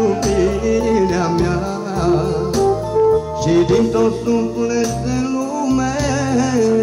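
Music: a song sung with vibrato over steady instrumental accompaniment.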